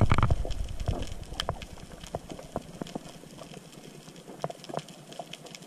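Underwater sound picked up by a submerged camera: a loud rush of water noise that fades away over the first two seconds, leaving a quiet background with scattered sharp clicks and ticks.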